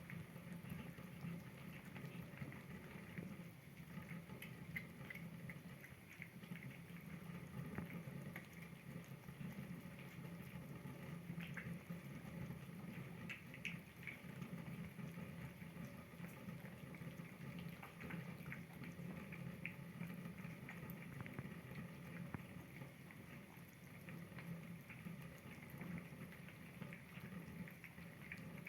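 Kittens eating: faint, irregular wet lapping and chewing clicks over a steady low background hum.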